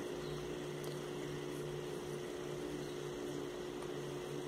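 Steady machine hum with one constant low tone, unchanging throughout.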